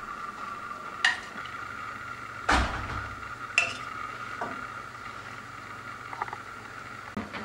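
A metal spoon clinking and knocking against a pot of sugar syrup about six times as it is stirred, with one heavier knock about two and a half seconds in.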